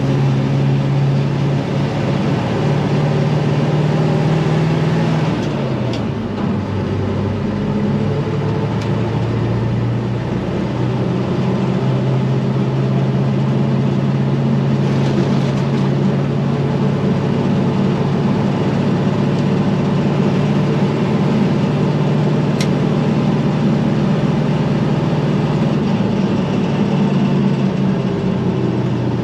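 International 4600 dump truck's 7.3 IDI non-turbo V8 diesel running steadily under load while the truck drives with about 8 tons aboard. The engine note drops about five or six seconds in, then holds steady.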